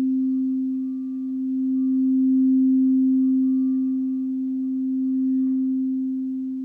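Quartz crystal singing bowl ringing with one steady, pure low tone that swells and eases in slow waves, with faint higher overtones above it.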